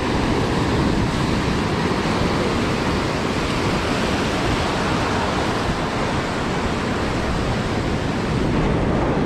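Steady, even rush of ocean surf on the beach, mixed with wind noise on the microphone.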